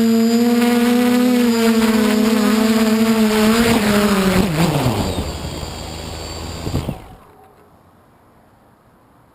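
DJI F450 quadcopter's electric motors and 8-inch propellers running with a steady whine. About four seconds in they spin down in a falling pitch, then a couple of clicks come shortly before the sound stops about seven seconds in, leaving faint hiss.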